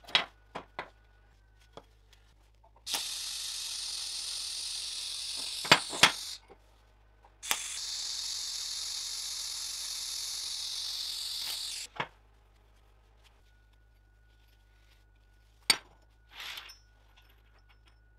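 TIG welding arc hissing steadily in two runs of about three and a half and four and a half seconds, each starting and stopping abruptly, as steel parts are tacked with hand-fed filler rod. Sharp clicks and taps of the metal parts being handled come before, during and after the runs.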